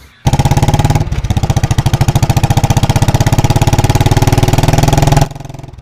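Motorcycle engine running very loud with a rapid, even exhaust beat through a changed, non-stock silencer: the kind of exhaust noise that breaks the noise limit. It starts suddenly, dips briefly about a second in, and cuts off abruptly near the end.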